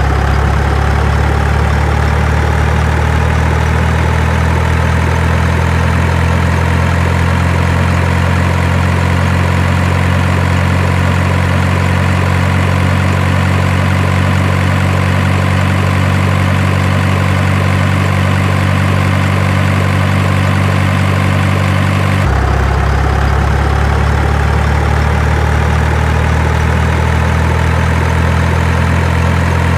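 Heavy truck engine idling steadily with a low, even rumble that never revs. Its tone shifts abruptly about two-thirds of the way through.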